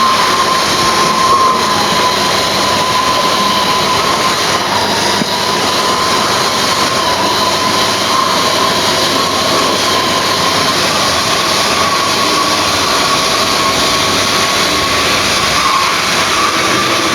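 Model railway diesel locomotive running on the track: a steady electric motor whine with a held tone that wavers slightly, over the rumble of wheels on rail.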